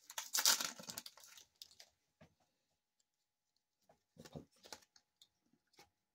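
Foil wrapper of a Donruss football card pack crinkling as it is torn open, for about the first second and a half. Then a few soft rustles and taps as the cards are pulled out and handled.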